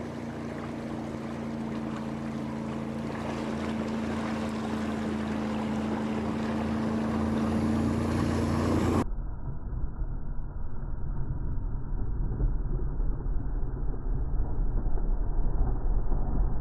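An engine drones at a steady pitch, growing gradually louder, then gives way abruptly about nine seconds in to a muffled rumble of wind on the microphone.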